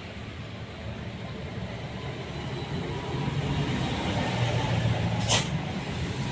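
A motor vehicle passing on the road close by: a low engine hum and road noise that build up over a few seconds. A short sharp sound cuts in a little after five seconds.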